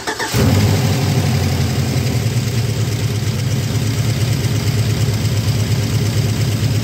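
2005 Chevrolet Silverado's 5.3-litre V8, freshly fitted with a BTR Truck Norris camshaft, catching just after the start on its first start after the cam swap and settling into a steady idle. A valvetrain tick is heard that the mechanics call rocker noise.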